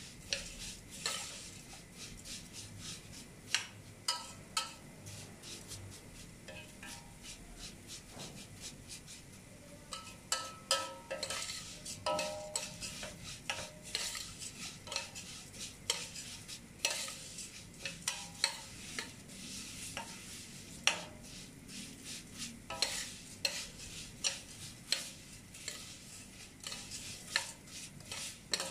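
Metal spoon stirring and scraping vermicelli in a stainless steel pot, with many irregular clicks and scrapes against the pot, over a light sizzle of the noodles toasting in a little vegetable oil as they begin to brown.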